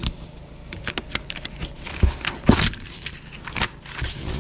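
Heat-transfer vinyl lettering being peeled and weeded by hand: the plastic film and its clear carrier sheet crackling and crinkling in quick irregular snaps, the sharpest about two and a half seconds in.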